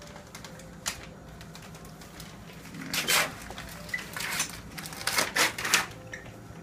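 Rustling, crinkling handling noises in several bursts through the second half, with a single sharp click about a second in, over a steady low hum.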